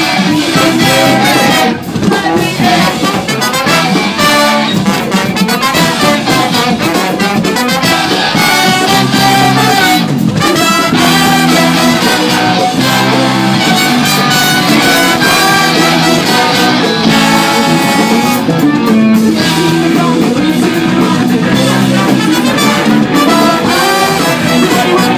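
Live ska-punk band playing loud: trumpet lines over electric guitar, bass and drums, with a male voice singing.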